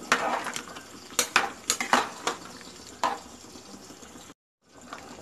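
Steel ladle stirring a thick dal curry in a metal pot, knocking and scraping against the pot about eight times in the first three seconds. The sound drops out briefly near the end.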